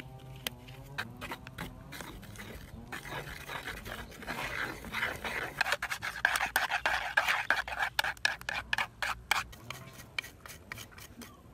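A wooden stick stirring and beating egg-and-flour batter in a wooden bowl: quick, rapid scraping clicks of the stick against the bowl, starting a few seconds in and easing off near the end.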